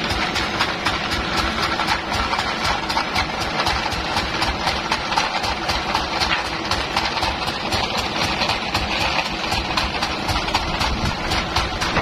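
Engine idling steadily, with an even, rapid beat. It is most likely the motor that drives the sawmill, running while the log is loaded.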